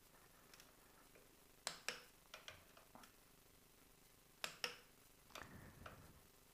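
Click-type torque wrench breaking over twice, each time a sharp double click, as the fork pinch bolts reach their set torque of 22 Nm; a few lighter ticks and rustles of the wrench being moved between bolts.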